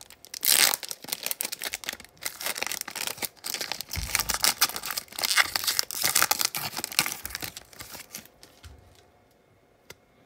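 A Panini Prizm football card pack's wrapper being torn open and crinkled by hand: dense crackling that stops about eight seconds in.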